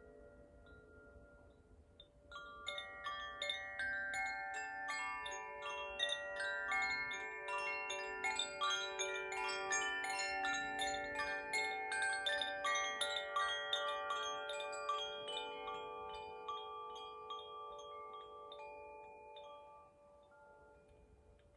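French-made tuned-rod wind chimes shaken by hand. After a faint lingering ring, a flurry of rapid clapper strikes starts about two and a half seconds in, and many bright overlapping notes ring together before slowly fading out near the end.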